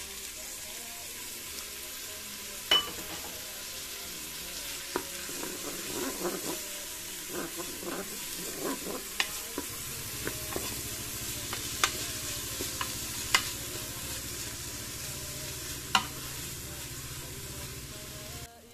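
Sliced onions sizzling in hot olive oil in a Cookeo multicooker pot, stirred with a wooden spoon that scrapes through them and knocks sharply against the pot about six times.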